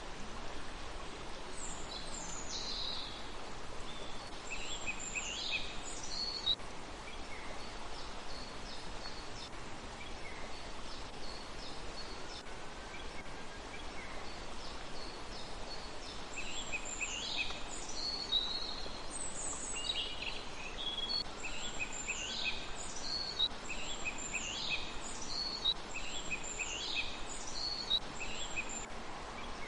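A songbird singing short, repeated high phrases that sweep downward, in two spells with a quiet gap between them, over a steady outdoor background hiss.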